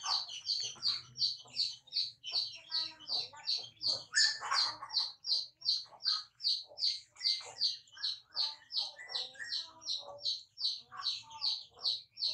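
A bird chirping over and over in a steady, even rhythm, about three high chirps a second. Fainter, scattered lower sounds lie underneath, with a louder burst about four seconds in.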